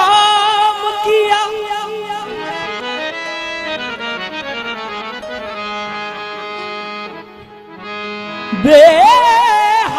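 Harmonium playing a stepping melody of held reed notes. Near the end a qawwali singer's voice comes in loud, sliding up into a long wavering note.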